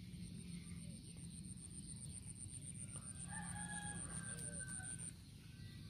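A rooster crowing once, starting about three seconds in and lasting about two seconds.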